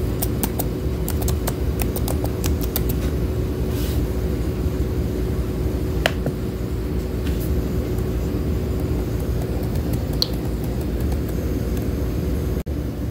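Computer keyboard typing: a quick run of light key clicks in the first few seconds and a few single clicks later, over a steady low mechanical hum with one constant tone.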